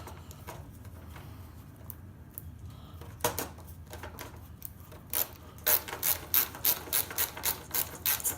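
Ratcheting screwdriver clicking as screws are backed out. After a quiet start and a single click about three seconds in, it clicks in a steady run of about three a second.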